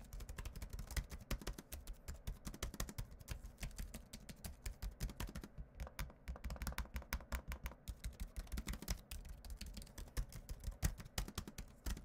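Chuwi MiniBook X laptop keyboard being typed on quickly, a dense run of key clicks. About halfway through, the laptop's trackpad is pressed, which gives a click of its own.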